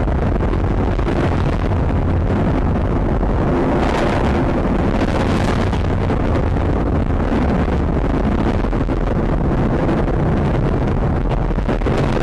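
H-IIA 202 rocket ascending under its LE-7A main engine and two solid rocket boosters: a steady, loud rumble of rocket exhaust.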